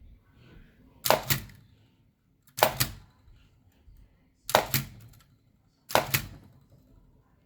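Metal clacks from the Elliott Fisher book typewriter's mechanism: four sharp clacks about a second and a half apart, each a quick double clack.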